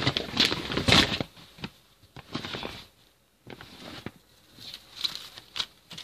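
Rustling and clatter of slime containers being packed back into a bag, loudest in the first second, then lighter rustles and a couple of sharp clicks near the end.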